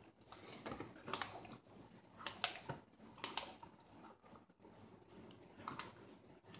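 Silicone spatula stirring and scraping soap batter in a small stainless steel cup: a string of soft, irregular clicks and scrapes, about two a second.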